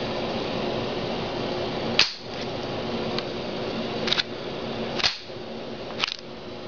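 Bolt of a Marlin Model 60 .22 semi-automatic rifle being worked by hand, with several sharp metallic clacks about a second apart, over a steady background hiss. The action is being cycled to feed and eject a powderless .22 round and test a new magazine follower.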